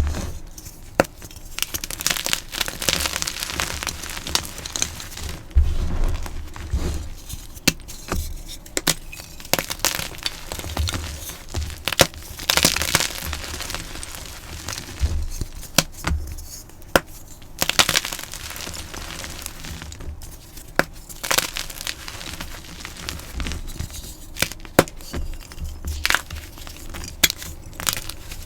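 Blocks of dyed gym chalk being crushed by hand: crisp, crunchy cracking with sharp snaps at uneven intervals and crumbling between them.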